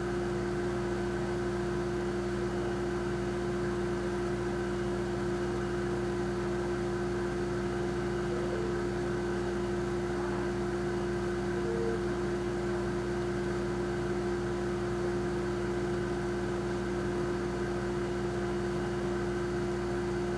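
Kitchen refrigerator running: a steady hum made of several held tones.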